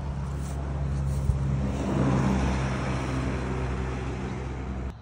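Road traffic: a vehicle driving past, growing to its loudest about two seconds in and then fading.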